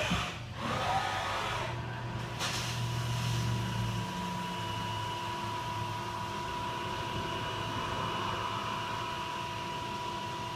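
Haas CNC vertical mill running a center-drilling cycle on a 1 3/4 inch square tube: a steady spindle whine over machine hum, with a few short knocks in the first couple of seconds.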